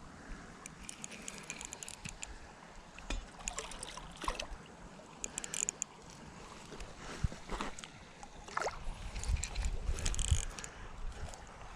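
Water sloshing and splashing as a hooked carp is fought at the edge of a creek, with scattered irregular knocks and rustles.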